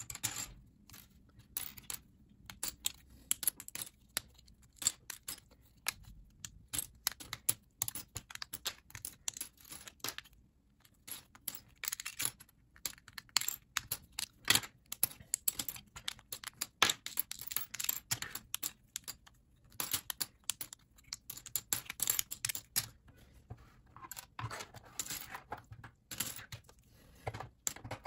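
LEGO plastic bricks and plates clicking and clattering as they are taken apart by hand and sorted through a loose pile of pieces: irregular sharp clicks throughout, with a short stretch of rummaging near the end.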